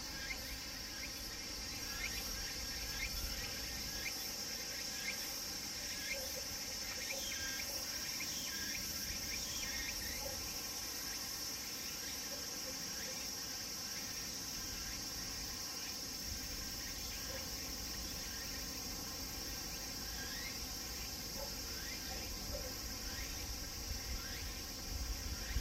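Cicadas shrilling steadily, with runs of quick falling chirps over the drone. The uploader names the tsukutsukuboshi (Meimuna opalifera) among them.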